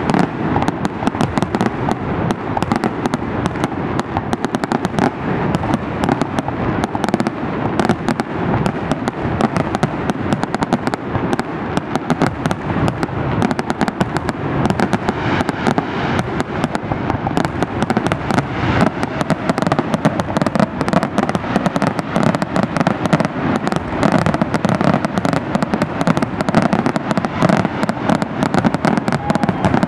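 Aerial fireworks shells bursting in a dense, unbroken barrage of bangs and crackling, loud and steady throughout.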